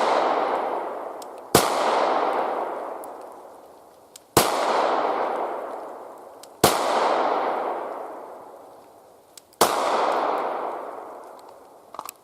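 Glock 17 9mm pistol fired four times, slowly and deliberately, a few seconds apart: the untimed zero-confirmation string of the 5x5 drill. Each shot is followed by a long echo that fades away over about two seconds.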